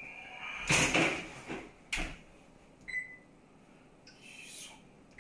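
Oven rack slid in and the oven door shut with a knock about two seconds in. About a second later the electric range's control panel gives one short beep as a key is pressed.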